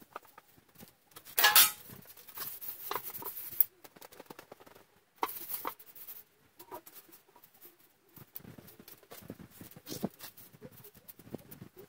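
Stiff charred T-shirt cloth rustling and crinkling as it is handled, with a louder rustling burst about a second and a half in and another about five and a half seconds in, and scattered light crackles between.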